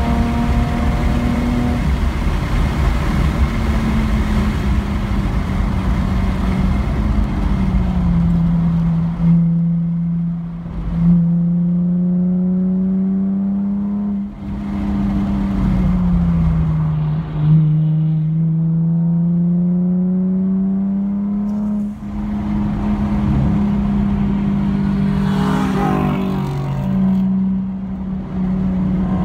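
Car engine heard from inside the cabin on a wet race track: at first a steady high-speed note under loud road and wind noise, then the engine pitch falls and climbs again several times, with short dips in loudness, as the car slows from about 99 mph and drives through the corners.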